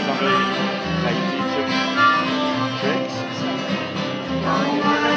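Live acoustic country band playing an instrumental passage: fiddle and strummed acoustic guitars over a stepping bass line, with harmonica.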